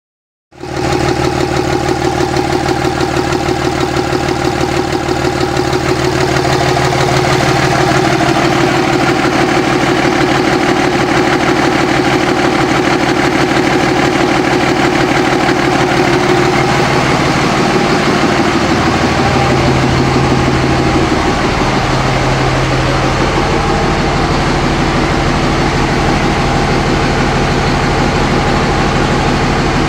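A 5.9-litre Cummins common-rail diesel engine in a 2005 Dodge truck running steadily at idle, its drone shifting slightly about two-thirds of the way through.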